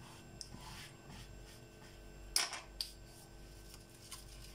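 Quiet kitchen handling noises over a faint steady hum: a few soft clicks and light rustles, the clearest a brief scrape or rustle about two and a half seconds in, as a hand works over a plastic cutting board and reaches for a nori sheet.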